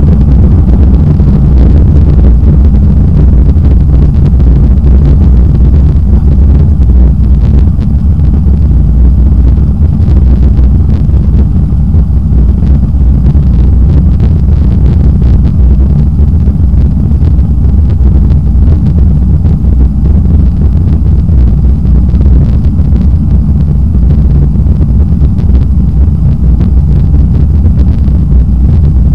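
Inside the cabin of a Boeing 737-800 on takeoff and initial climb: the CFM56-7B engines at takeoff thrust make a loud, steady low rumble, with a faint high whine above it.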